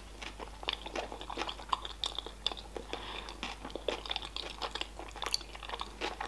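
Close-up chewing of a mouthful of sushi roll: a run of small wet clicks and light crunches, uneven in rhythm.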